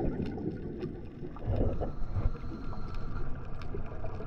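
Underwater ambience as heard through a diving camera: a steady muffled low rumble with scattered faint clicks.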